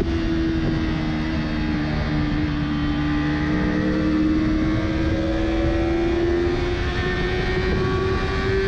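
Yamaha R3's parallel-twin engine heard from on board, running steadily at speed with its pitch drifting slightly down and back up through the bends, over steady wind rush.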